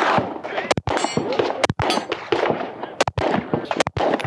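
Heckler & Koch VP9 9mm pistol firing a string of about five single shots, roughly one a second, with fainter shots and voices from the rest of the range behind.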